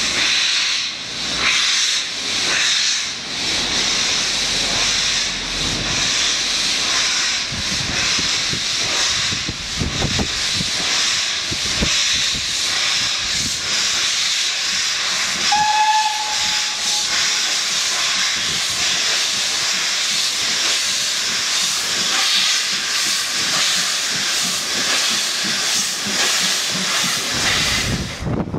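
Steam tank locomotive moving slowly off with a train, giving a loud, continuous hiss of escaping steam, with a few dull beats underneath and one short whistle toot about halfway through.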